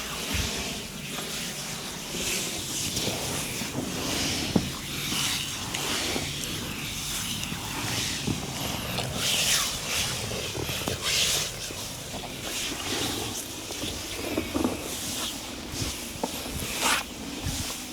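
Hands rubbing and stroking over skin in a massage, in soft repeated swishing strokes, with a sharp click about four and a half seconds in.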